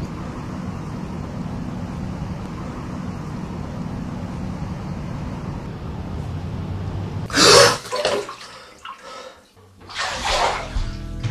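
Steady low rumble of wind on the microphone for about seven seconds, then water splashing in a bathtub: a loud splash about seven seconds in and another about ten seconds in.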